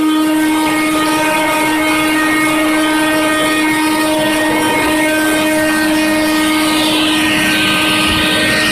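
Zepter water-filtration vacuum cleaner running with a steady motor whine. About seven seconds in, a hissing rush of air swells.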